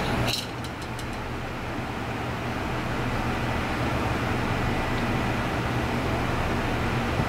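Steady low mechanical hum of background machinery, with a few faint clicks about half a second in.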